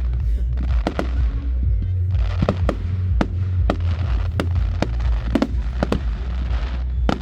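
Fireworks display: aerial shells bursting in a quick, irregular run of sharp bangs, about two or three a second, with crackling between them.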